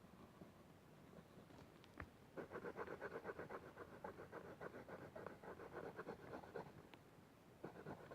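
Coloured pencil scratching rapidly back and forth on paper, colouring in an area, for about four seconds from a couple of seconds in. A single faint tap comes just before the strokes start.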